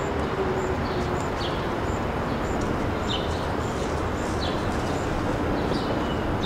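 Outdoor ambience: a steady hiss with short bird chirps every second or so, and a faint high ticking repeating about every two-thirds of a second.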